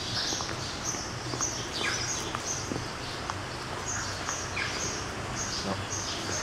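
Small birds chirping, a quick, continual run of short high notes with a couple of brief falling calls, over a faint low steady hum.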